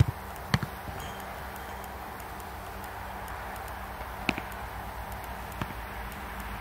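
A football being struck and caught during goalkeeper training: about four sharp thuds, some in quick pairs, over steady background noise.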